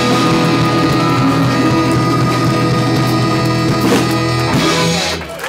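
Live rock band with two saxophones and electric guitars playing, the music stopping about five seconds in.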